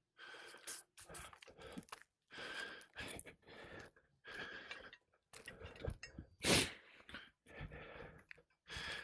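Footsteps and gritty crunching on old asphalt three-tab shingles, coming in irregular bursts with short gaps, with one louder scrape about six and a half seconds in.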